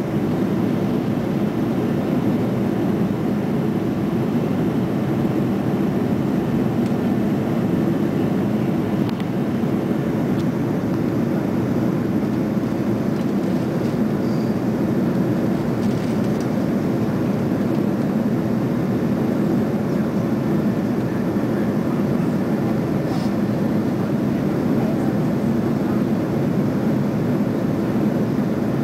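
Steady cabin noise of an Airbus A330-300 climbing after takeoff: a deep, even rush of engine and airflow heard from inside the passenger cabin.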